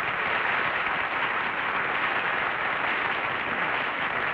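Studio audience applauding, a steady dense clatter of many hands clapping, heard through the narrow, dull sound of an old television kinescope recording.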